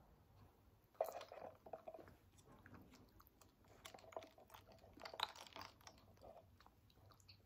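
Faint close-up chewing of a cream puff, with sharp clicks and crackles about a second in and again around four to five seconds in.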